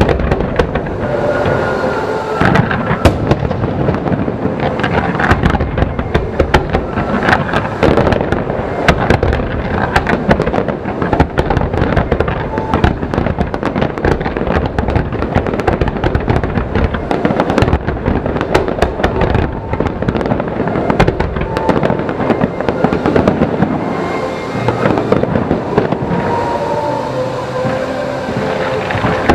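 Aerial fireworks display going off in a dense, continuous barrage of bangs and crackles with no let-up.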